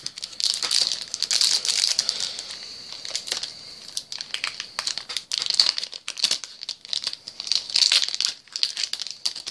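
A trading-card booster pack wrapper crinkling and crackling in fits and starts as it is pulled and twisted by hand: a stubborn pack that will not open easily.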